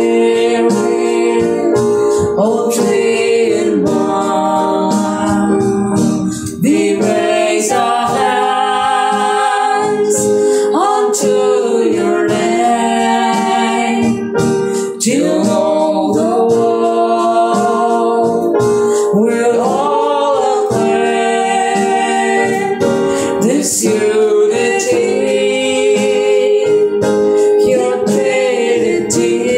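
A worship hymn to the Holy Trinity sung to keyboard accompaniment, with sung phrases over held chords.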